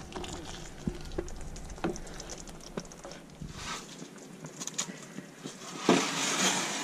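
Light clicks and rustling of naan breads and foil being handled on an oven tray, with a louder burst of rustling near the end.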